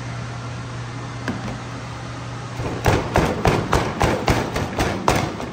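Metal bench scraper chopping pulled oxtail meat on a plastic cutting board: quick sharp strikes, about four a second, starting about three seconds in, over a steady low hum.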